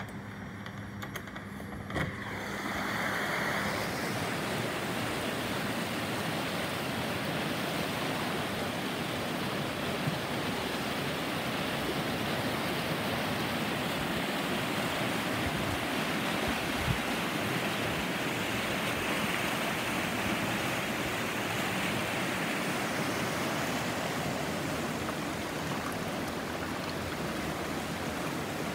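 A river in full flood: heavy, fast water rushing in a steady, dense roar that swells up about three seconds in, after a single knock, and then holds.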